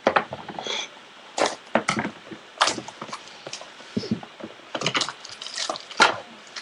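Trading cards and their packaging being handled, with irregular sharp clicks, crinkles and scrapes as the next box is opened and the cards are pulled out.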